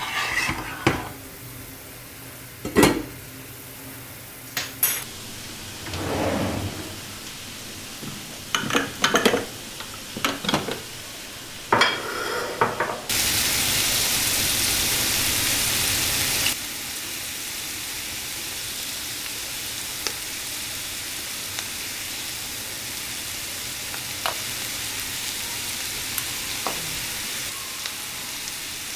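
Utensils and a pan clinking and knocking, then food sizzling in a hot frying pan. The sizzle is loudest for a few seconds about halfway through, then settles to a steady sizzle with an occasional small tick.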